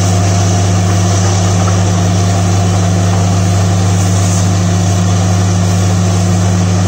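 Borewell drilling rig running steadily and loudly, a constant low engine note with a hiss of air and water spraying rock cuttings out of the top of the bore's casing pipe.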